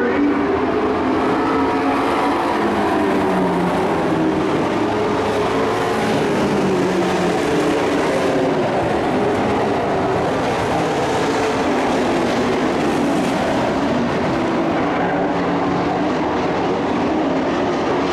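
Race trucks' engines running as they circle the oval, a steady loud drone whose pitch rises and falls as the trucks pass.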